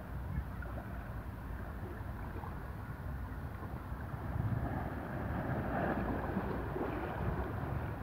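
Small sea waves lapping and washing against shoreline rocks, swelling into a louder wash about halfway through. Wind rumbles on the microphone throughout.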